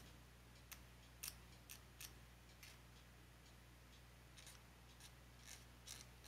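Very faint, short clicks and scrapes of a hobby knife blade against a small plastic model part, about a dozen spaced irregularly, over near silence.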